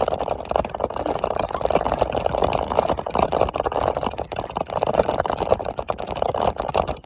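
A small vehicle driving along, its engine running under rough, fluctuating noise that could be wind buffeting the microphone.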